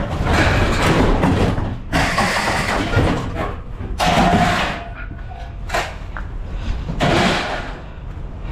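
A run of knocks and scraping noises, several each lasting about a second, over a steady low hum.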